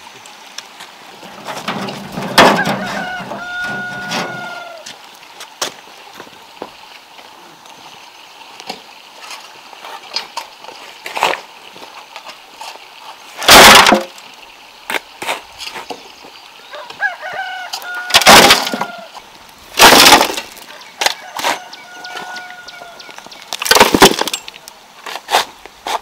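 A rooster crows three times, each crow a held call that bends in pitch, over a rural background. Four loud, sharp strikes land in between, the loudest sounds here.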